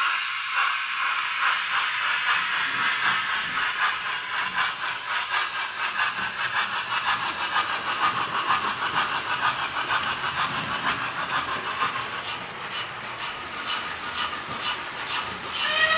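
Sound decoder in an OO gauge model of a rebuilt Merchant Navy class steam locomotive playing a steam exhaust beat. It is a rapid, even run of chuffs with hiss, heard through the model's small speaker, so it is thin with little bass.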